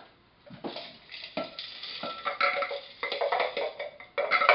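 Plastic food processor bowl being lifted off its base, then tipped and knocked against a glass mixing bowl while the sticky date-and-walnut mixture is scraped out. It comes through as a run of irregular knocks and scrapes.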